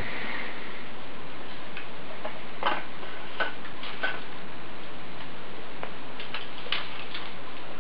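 Light, irregular clicks and clacks of hard plastic baby-gym toys (hanging rattles and rings) being knocked and handled, over a steady hiss.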